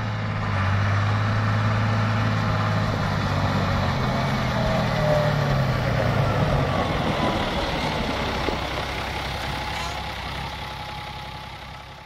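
Claas (Renault) Ares 620 RZ tractor's John Deere six-cylinder diesel engine running as the tractor drives past. The engine note shifts about four seconds in, and the sound grows fainter over the last few seconds.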